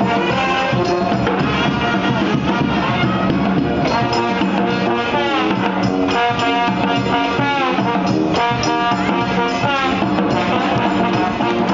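A New Orleans-style street brass band playing: sousaphone bass line under trumpet and trombone, with a marching drum keeping the beat. The horns bend and slide between notes a few times.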